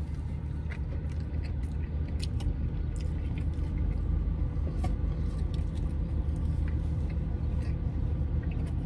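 Biting into and chewing a soft, wet, au-jus-dipped Italian beef sandwich, with faint scattered mouth clicks. Underneath is a steady low rumble of the car idling, heard from inside the cabin.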